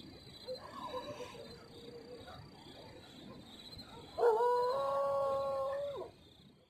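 A canine howling: a faint howl about half a second in, then a louder, long howl from about four seconds in that rises, holds one pitch and drops away at its end.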